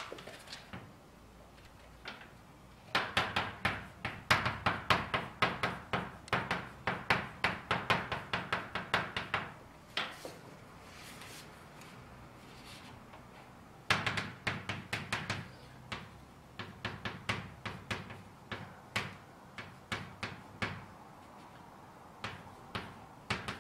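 Chalk writing on a blackboard: quick runs of sharp taps and scrapes as characters are written, in two long spells with a pause of a few seconds between them and a shorter spell near the end.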